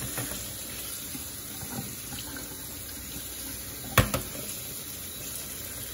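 Kitchen tap running steadily into a stainless steel sink, the stream pouring onto soaked sticky rice in a mesh strainer as it is rinsed by hand. A single sharp knock about four seconds in.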